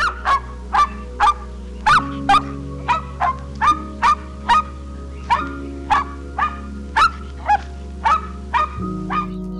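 A small dog barking in short, high yaps, about two a second, each dropping slightly in pitch, over soft background music.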